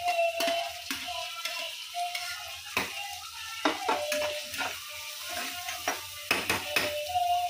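Chopped tomatoes pushed off a plastic chopping board with a knife into a hot kadhai, then a metal spatula stirring them, clicking and scraping against the nonstick pan over a light sizzle of frying.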